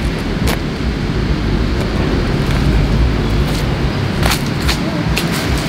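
Wind buffeting the microphone: a steady low rumble, with a few faint clicks about half a second in and again near the end.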